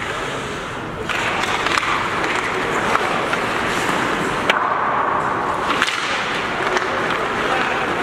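Ice hockey play: skate blades scraping and hissing on the ice, with scattered sharp clacks of sticks striking the puck and each other.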